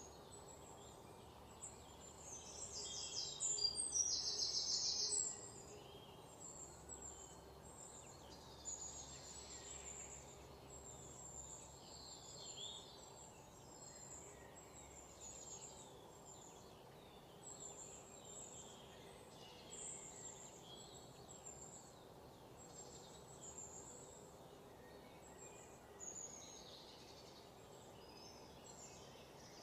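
Small birds chirping and calling with short high notes. About three seconds in, a louder run of rapid repeated high notes lasts a couple of seconds.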